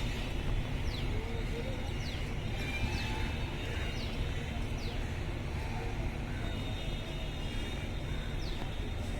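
Railway ambience: a steady low rumble with faint voices in the background and a short, high, falling chirp repeating about once a second.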